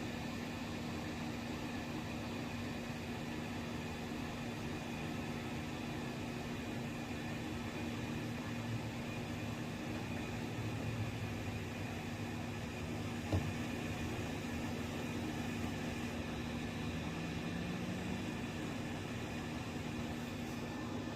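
A steady mechanical hum under a constant hiss, with one short click about thirteen seconds in.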